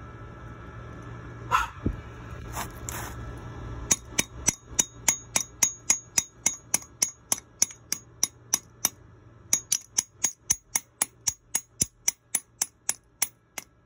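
Light, sharp metallic taps on the freshly welded steel plate, evenly spaced at about three a second. They start about four seconds in, when a low steady hum stops, and pause briefly about halfway through before carrying on.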